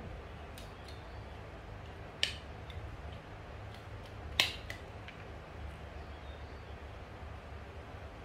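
A few small, sharp clicks, two of them louder and about two seconds apart, over a low steady hum.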